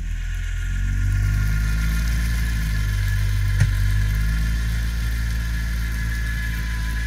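Quad bike's engine running steadily in low range as the stuck machine tries to pull out of deep bog mud. A thin high whine runs over the engine note, and there is one sharp click about three and a half seconds in.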